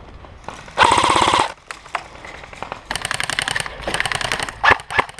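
Airsoft rifle fired full-auto in rapid bursts of clicks: one loud burst about a second in, then two shorter, quieter bursts around three and four seconds in.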